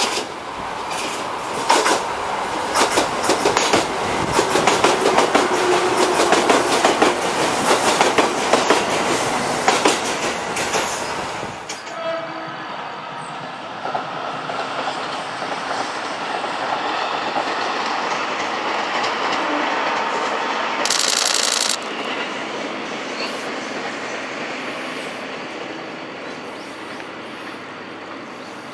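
JR Kyushu 787 series electric train passing close by, its wheels clicking rapidly over the rail joints. After a cut it gives way to a quieter, steady rumble of a 787 series train running in the distance, with a brief high-pitched sound about two-thirds through.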